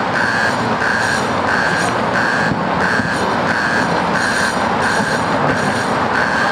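Steady road-traffic noise with a high electronic beep repeating about one and a half times a second, like a reversing alarm.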